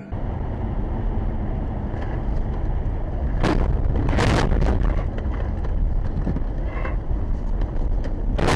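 Car driving on a snowy road, heard through a dashcam inside the cabin: a steady rumble of road and wind noise with a few knocks a few seconds in. Near the end a rapid cluster of bangs and thuds begins as the car crashes into the roadside barrier.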